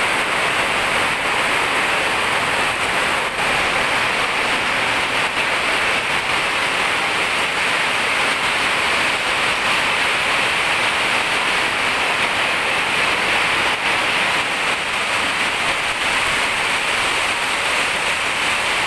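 Heavy rain pouring down on a road and roofs, a steady dense hiss that does not let up.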